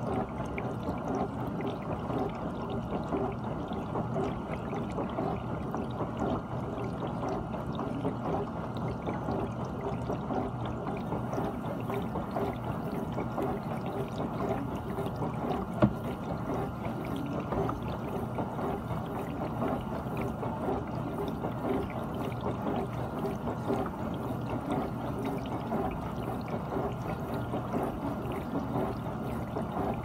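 GE dishwasher running mid-cycle: water splashing steadily inside the tub, with one sharp click about halfway through.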